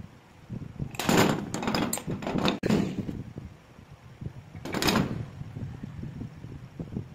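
Rusty metal parts of an electric animal hair clipper being handled and pulled apart, scraping and knocking against each other in short bursts about a second in, around two seconds and again near five seconds, over a low background rumble.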